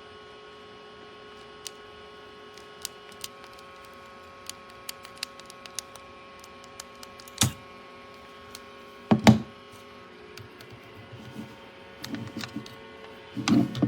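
Scattered light clicks and a few louder knocks, the biggest about nine seconds in and a cluster near the end, over a steady electrical hum.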